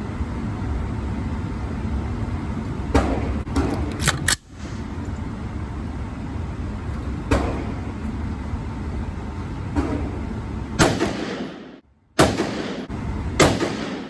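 Gunshots on a shooting range: about nine sharp shots at uneven spacing, some single and some in quick pairs, over a steady low background noise.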